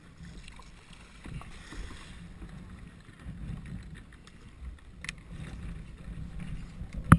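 Wind buffeting the microphone and water moving around a sea kayak's bow as it drifts in over shallow pebbles, with a single sharp knock near the end.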